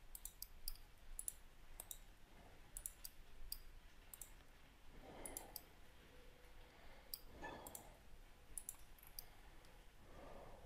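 Faint computer mouse and keyboard clicks, irregular and often in pairs, as the mesh is selected and moved in 3D modelling software.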